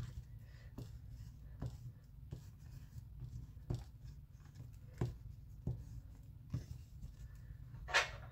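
Oil pastel stick drawn across sketchbook paper in short scratchy strokes, roughly one a second, with one louder brief rustle near the end.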